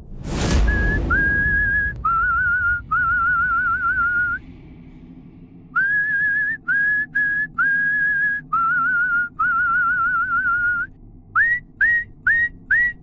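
A short whoosh at the start, then a tune whistled in several phrases, some notes held with a wavering pitch, ending in four short notes that each scoop upward.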